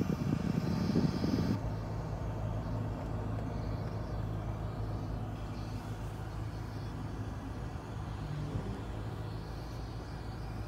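Mitsubishi Outlander running with its air conditioning on: a louder low rumble that drops away about a second and a half in, then a steady low hum. This is the sound that is presented as the car's abnormal air-conditioning noise.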